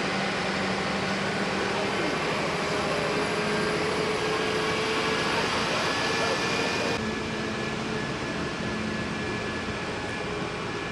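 Mercedes fire engine's diesel running with a steady drone, dropping somewhat in level about seven seconds in.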